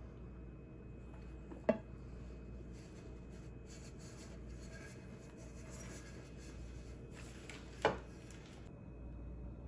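Upturned metal cooking pot lifted off a plate and set aside: two light knocks about six seconds apart, with faint rubbing between them.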